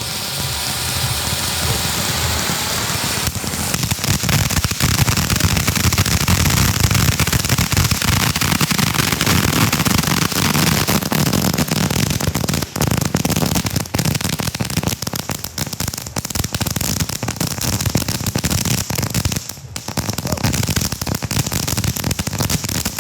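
Consumer fireworks going off close by: a continuous hiss thick with rapid crackling and popping, growing louder about three seconds in.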